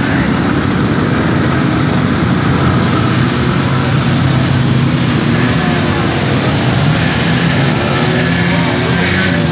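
Several vintage two-stroke snowmobile engines running at low speed as the sleds pull past one after another, a steady overlapping engine drone.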